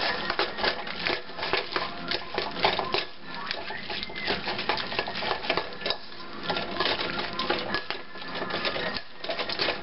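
Hand squishing and kneading a wet crab-meat and breadcrumb stuffing with raw egg in a stainless steel bowl: a steady run of small squelches, clicks and taps as fingers work the mixture against the metal.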